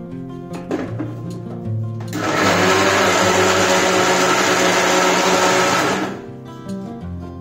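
Mixer grinder running with soaked urad dal in its steel jar, a loud steady whirr that starts about two seconds in and stops about four seconds later as it grinds the dal into idli batter.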